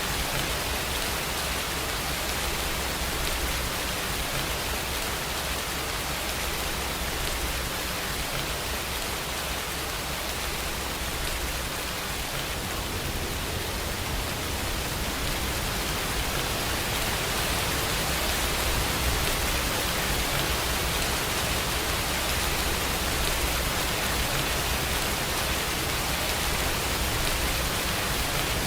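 Steady rain falling in an even hiss, with a low rumble underneath.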